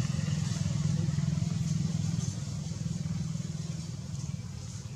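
An engine running with a steady low rumble, which eases off a little past two seconds in.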